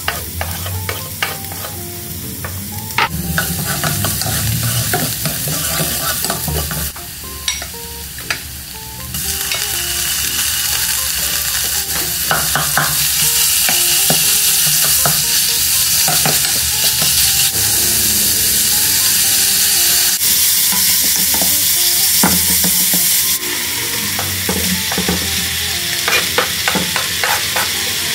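Minced garlic and ground pork sizzling in hot oil in a nonstick wok, stirred with a wooden spatula that scrapes and taps against the pan. The sizzle grows louder about nine seconds in.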